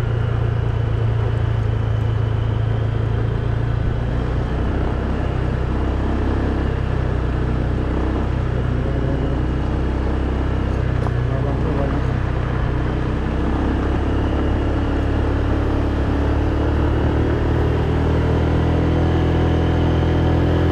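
Motorcycle ridden at a steady pace: a continuous low engine and road rumble mixed with wind noise on the microphone, holding an even level throughout.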